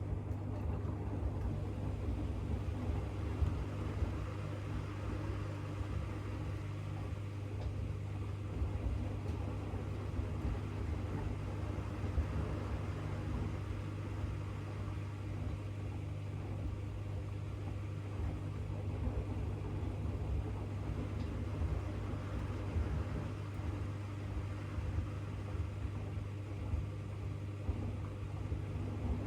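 AEG LR8FL160EX front-loading washing machine running mid-cycle: a steady motor hum with a low, uneven rumble from the drum and its load.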